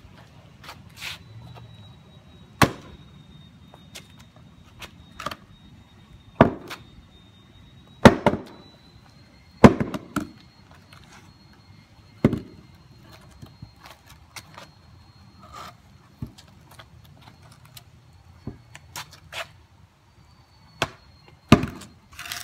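Hatchet chopping into a wooden 4x4 post: single sharp blows a few seconds apart, irregular, the hardest about eight and ten seconds in, with lighter knocks between them and a hard pair of blows near the end.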